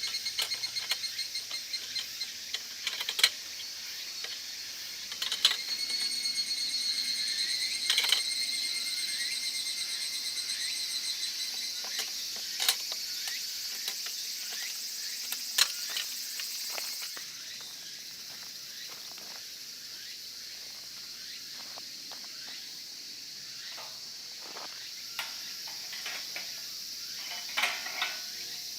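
Insects trilling, cricket-like, in a high pulsed chirr over a steady high hiss of insect noise that drops off about seventeen seconds in. Sharp clicks and knocks sound now and then.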